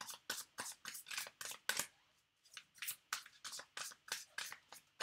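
Tarot cards being shuffled by hand: quick rhythmic card slaps and clicks, about three or four a second, in two runs with a short pause about two seconds in.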